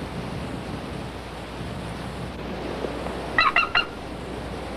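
Steady wind noise over the microphone, broken a little past halfway by a hawk giving three quick, short, high calls.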